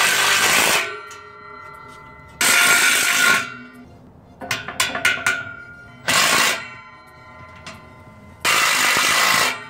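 Cordless drill running in four short bursts of about a second each while fixing a steel hinge to a metal gate post, with a few sharp hammer taps on the hinge between them. Faint background music runs underneath.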